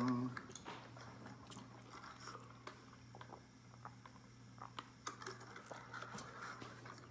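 Soft close-up mouth sounds of chewing a McDonald's chicken nugget, with scattered small clicks and smacks, then a sip through a plastic straw from a paper cup near the end.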